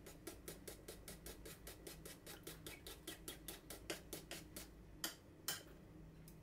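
Raw egg being beaten with a utensil in a small wooden bowl: quick, even clicks of the utensil against the bowl, about six a second, then two louder knocks about five seconds in.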